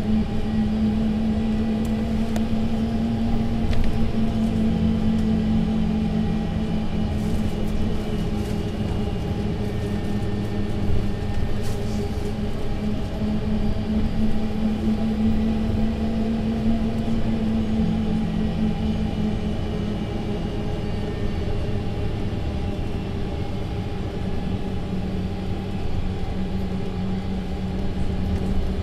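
Mercedes-Benz Citaro C2 LE city bus (Euro 6 diesel) running at a steady drone. Its pitch shifts slightly twice, with a few faint ticks in between.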